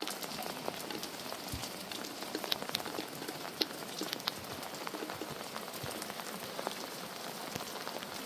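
Light rain falling, a steady patter with scattered individual drops ticking on hard surfaces.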